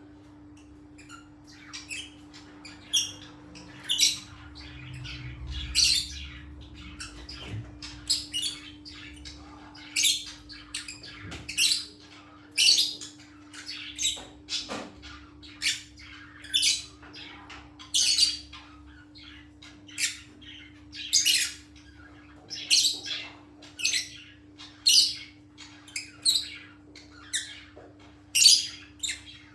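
A bird calling over and over in short, sharp, high chirps or squawks, about one a second, over a faint steady hum.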